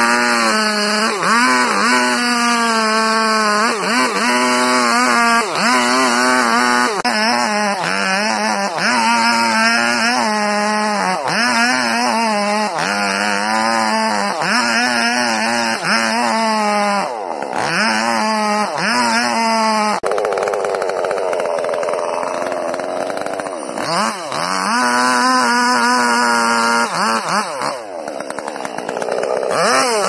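Large gasoline chainsaw with a long bar cutting into a thick tree trunk. The engine pitch dips and recovers about once a second as the chain loads in the wood, and for a few seconds about two-thirds through the sound turns rougher and less even.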